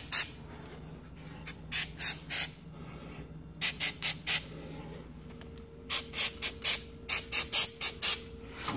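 Aerosol spray lubricant can fired in short hissing squirts onto garage door hinges: a few quick squirts in small groups, then a fast run of about eight near the end.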